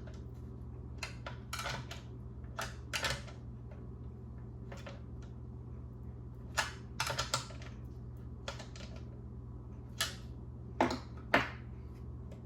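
Irregular clicks and short scrapes of small metal nuts and the instrument cluster's plastic housing being handled as the nuts are run down by hand onto the new backing panel; a few sharper clicks come near the end.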